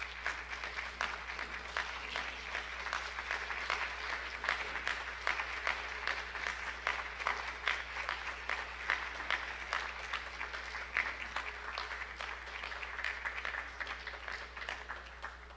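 Applause from a small group of people clapping steadily, dying away near the end.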